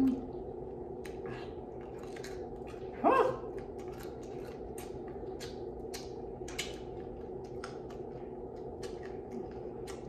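Close mouth noises of a person eating chicken and raw vegetables: many short wet smacks and clicks from lips, chewing and finger-licking, over a steady background hum. About three seconds in, a short, sharp cry rises steeply in pitch.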